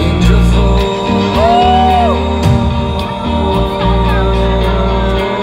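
A live band playing amplified, with electric guitars over heavy bass and drums, heard from within the audience; one long bending note stands out about a second and a half in.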